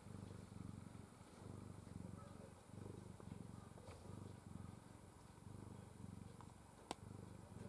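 A 22-year-old domestic cat purring quietly and steadily, the purr swelling and dipping with its breathing. A single sharp click near the end.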